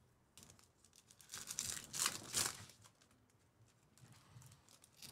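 Foil trading-card pack wrappers crinkling and tearing as packs are opened by hand, in a run of rustling bursts loudest about two seconds in, then fainter rustling near the end.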